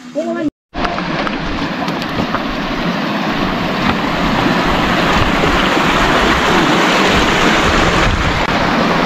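Heavy rain pouring down, a loud, steady hiss that starts suddenly at a cut about a second in and grows slightly stronger.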